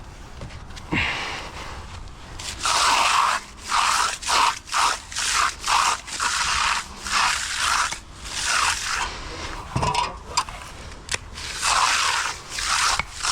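A finishing tool scraping across fresh concrete in a series of short, quick strokes, roughly two a second, with a brief pause around ten seconds in.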